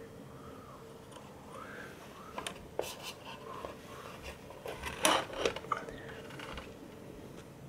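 Clicks and metallic clatter from hands handling an opened UPS's sheet-metal chassis and battery, a few knocks with the loudest clatter about five seconds in, over a faint steady hum.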